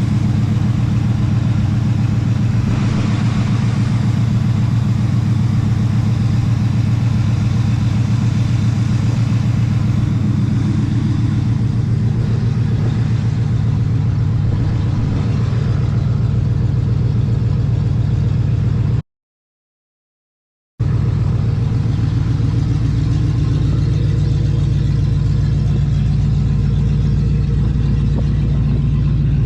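Oldsmobile Cutlass Supreme's V8 engine running steadily at idle. The sound cuts out completely for about two seconds near the two-thirds mark, then the engine is heard again.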